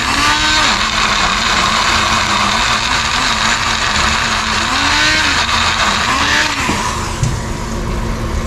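Small blender's motor running hard as it blends coconut with water into coconut milk. Its pitch wavers up and down as the load shifts, and it stops about seven seconds in.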